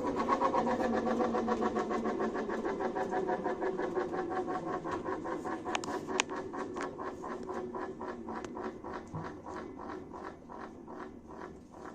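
Washing machine drum coasting down after spinning, with a repeating scraping knock that slows from several strokes a second to about two a second and fades. This is the strange noise the machine makes on spin.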